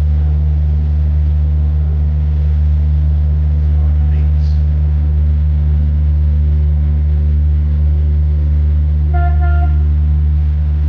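Steady low engine drone, with a short horn toot about nine seconds in.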